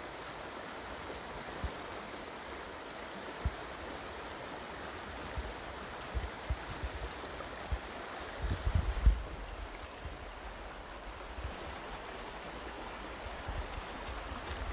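Shallow river running fast over a pebble bed, a steady rushing of water, with a few low thumps on the microphone, the loudest cluster about halfway through.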